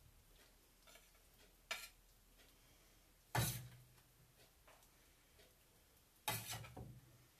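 Spatula knocking and scraping against a frying pan and plate while stewed eggplant is lifted out and plated: a few short clatters, the loudest about three and a half seconds in and another cluster near the end.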